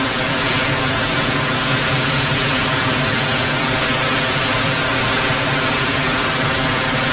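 Heavy rain and strong wind of a severe storm: a loud, steady rushing noise with no let-up.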